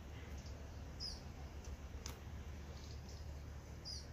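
A small bird calling in the background: a short high chirp about a second in and again near the end, over a low steady rumble, with a single sharp click about two seconds in.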